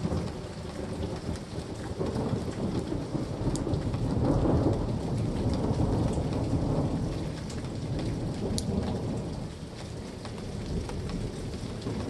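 Steady rain falling, with a low rumble of thunder that swells about a third of the way in and slowly dies away.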